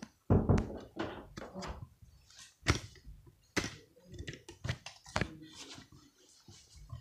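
Scattered sharp clicks, taps and a few soft thumps at irregular intervals, the loudest a thump just after the start and two sharp clicks around the middle.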